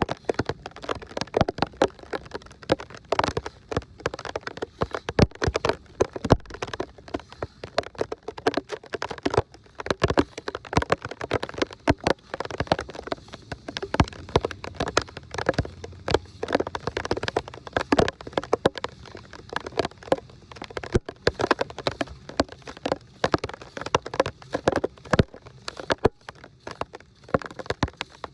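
Dense, irregular pattering and splashing of water, many small sharp hits close together with no steady tone.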